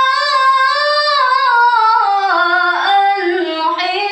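A young woman's voice reciting the Qur'an in the melodic tilawah style, drawing out one long ornamented vowel without a break. The held note starts high and steps down to a lower pitch about halfway through, with small wavering turns.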